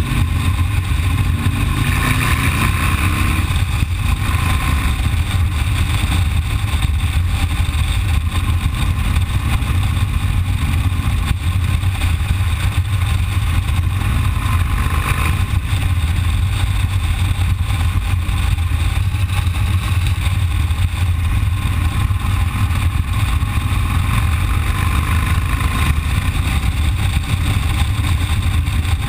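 Cruiser motorcycle engine running steadily at road speed, with a continuous low rumble of engine and wind noise.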